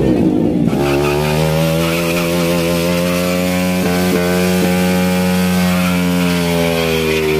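Motorcycle engine held at steady high revs, its pitch rising slightly toward the middle and easing off near the end, with a couple of brief dips about four seconds in.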